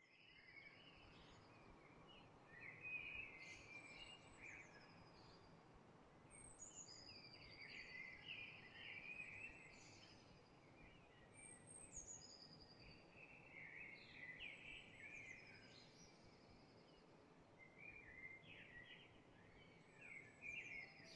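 Faint birdsong: short chirps, quick whistled glides and brief trills, repeating every second or two over a steady hiss.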